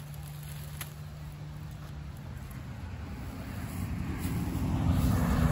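A passing motor vehicle: a low rumble that builds over a couple of seconds to its loudest near the end.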